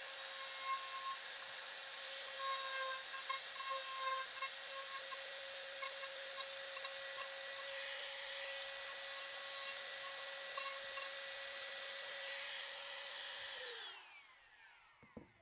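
Palm router running at full speed, its bit cutting wood to level a glued-in plywood patch flush, with a steady high whine. About fourteen seconds in it is switched off and winds down with a falling whine.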